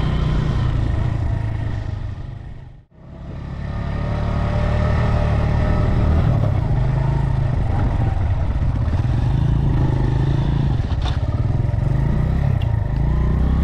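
Motorcycle engine running steadily while riding. About three seconds in, the sound fades out to silence and straight back in.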